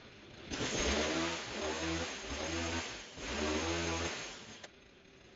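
Small engine of a handheld power tool revving in a few bursts, then cutting off suddenly.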